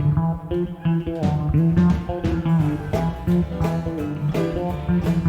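Country band playing an instrumental intro: a plucked electric guitar riff over bass guitar and drums.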